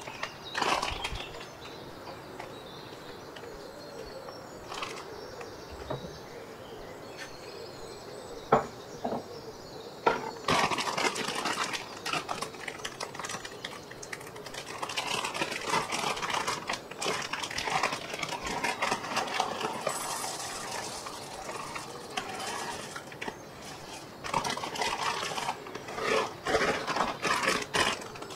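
A few scattered knocks, then a plastic bag of dried fava beans being handled and opened, with crinkling plastic and the dry beans rattling inside it. Near the end the dried beans rattle as they pour into a glass bowl.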